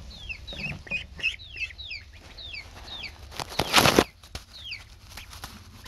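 Young poultry peeping over and over in short, falling chirps. A loud rustle lasting about half a second comes about three and a half seconds in.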